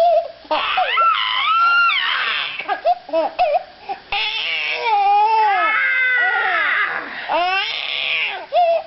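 A baby giving a string of loud, high-pitched cries and shrieks that slide up and down in pitch.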